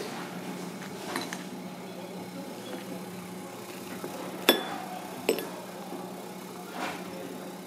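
A few sharp clinks on crockery, the two loudest about four and a half and five seconds in, over a steady low hum.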